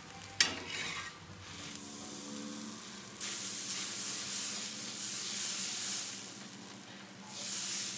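Dosa batter sizzling on a hot iron tawa as it is poured and spread round with a ladle, the hiss rising sharply about three seconds in and swelling again near the end. A single sharp click comes just before, near the start.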